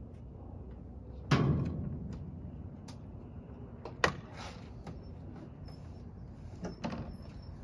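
Cab door of a 1997 Isuzu FTR medium-duty truck being worked: a loud thump about a second in, a sharp latch click about four seconds in as the door opens, and a couple of smaller knocks near the end as the driver climbs out.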